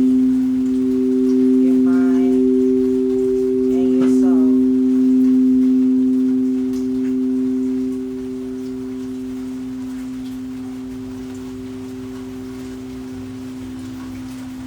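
Singing bowls ringing with two steady, sustained tones, joined twice early on by short warbling chirps. The ringing drops in level about halfway through and then slowly fades.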